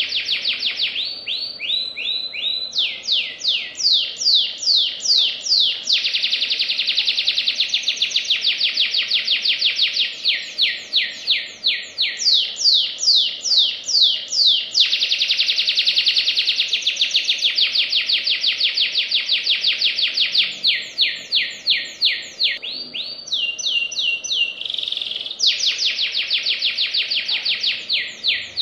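Domestic canary singing a continuous, fast song: runs of quick, high, falling trill notes alternating with very dense rolls, the tempo changing every few seconds.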